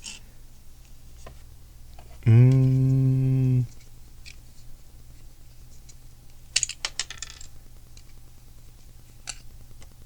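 A steady, thoughtful hummed 'hmm' held for about a second. A few seconds later comes a quick cluster of small plastic Lego pieces clicking and rattling against each other, with a few single clicks scattered around it.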